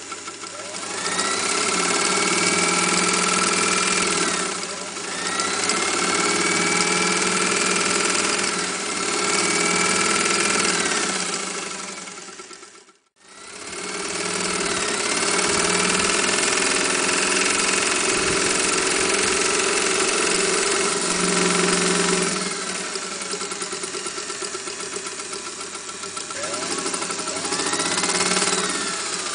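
Singer 201K electric sewing machine running and stitching in several runs, each speeding up and slowing down. The sound drops out abruptly about halfway through and then starts again.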